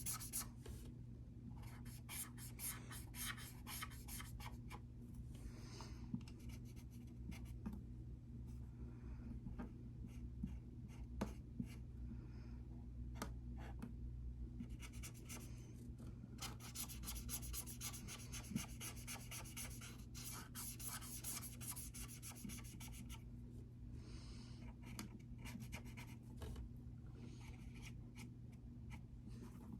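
Rapid scratchy rubbing strokes in several bursts of a few seconds each, like hand work on a hard surface, over a steady low hum.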